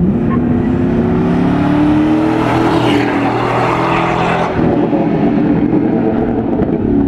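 Chevrolet Silverado pickup's 4.8 L V8 through a Flowmaster 40 Series exhaust, revving up under hard acceleration in a low gear as it passes close by, loudest midway. About four and a half seconds in, the exhaust note loses its edge as the truck pulls away.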